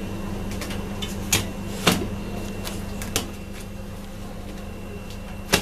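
A few sharp knocks and clinks of handling around a perforated metal pizza pan and oven, the loudest about two seconds in and another near the end, over a steady appliance hum with a faint high whine.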